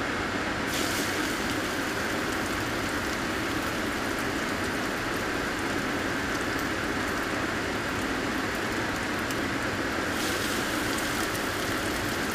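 Breaded smallmouth bass fillets sizzling in a frying pan of hot oil. The sizzle starts about a second in as the first fillet goes in, and gets brighter near the end as a second fillet is added, over a steady background hum. The oil is smoking hot, too hot for the fish.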